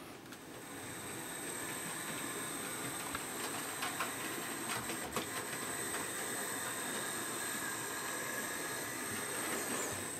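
Hornby P2 OO-gauge model steam locomotive running along the track hauling coaches on its replacement motor: a steady whirr with a thin high whine and a few scattered clicks, growing a little louder as it comes by.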